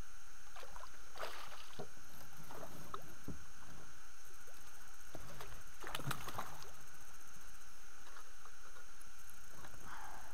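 Water splashing as a hooked pike thrashes at the surface and is scooped into a landing net, the biggest splash about six seconds in. A steady hiss runs underneath.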